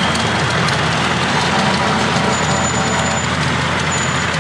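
Kenworth cab-over heavy tow truck's diesel engine running steadily as the truck drives past.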